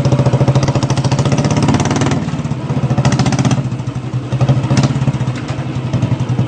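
Motorcycle engine running with a rapid, even pulse.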